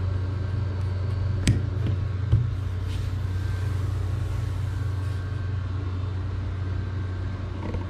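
A steady low hum, with two short clicks about a second and a half and two and a half seconds in.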